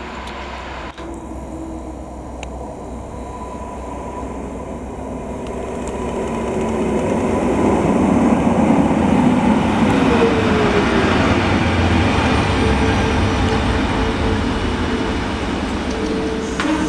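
EN57AKŁ electric multiple unit approaching and running past close by on the rails, growing steadily louder over the first eight seconds and staying loud as the cars go by. A tone falls in pitch about ten seconds in.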